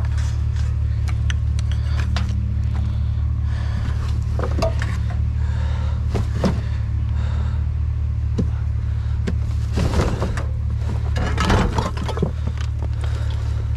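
Steady low hum of an idling engine, with scattered knocks, scrapes and rustling as junk is handled, busiest about ten seconds in.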